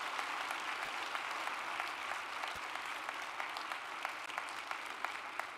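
Audience applauding, dense at first and thinning toward the end into separate claps.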